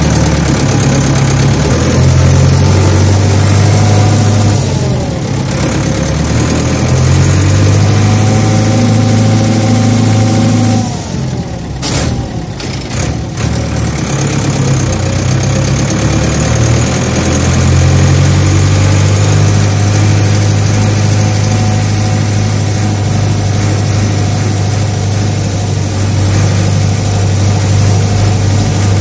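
A large farm machine's diesel engine running under load, its pitch rising and falling several times. It eases off briefly about eleven seconds in, then settles back to a steady drone.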